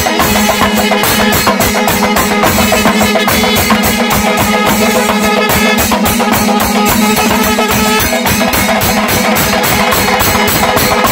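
Kerala Panchavadyam temple ensemble: fast, dense hand-beaten thimila drumming, with kombu horns sounding a steady held note under the drums.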